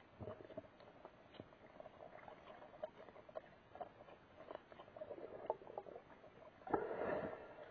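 Muffled underwater sound picked up by a submerged camera: faint scattered clicks and crackles over a low wash, with a louder rush of water about seven seconds in.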